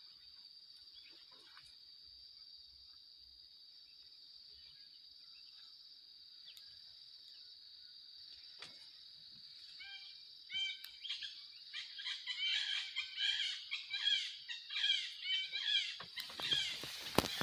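A steady, high-pitched insect drone. From about halfway through, birds join in with many rapid, repeated chirping calls that grow louder. A brief rush of noise comes near the end.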